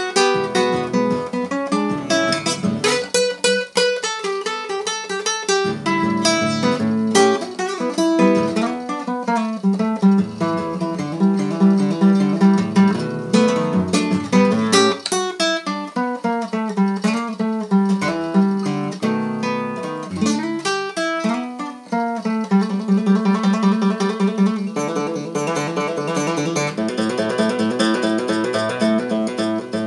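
Solo nylon-string classical guitar, fingerpicked, playing a blues with quick runs of plucked notes over a steady bass.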